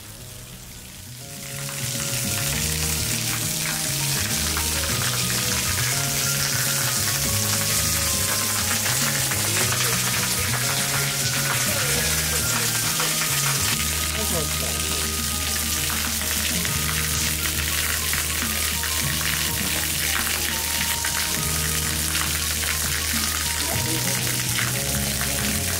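Steady hiss of the Fudō waterfall's thin stream spattering onto the stones of its pool, setting in about a second and a half in. Low background music with slowly changing bass notes runs underneath.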